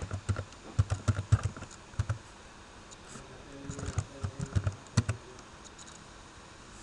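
Computer keyboard being typed: a quick run of key clicks, a few more keystrokes about four to five seconds in, then a pause.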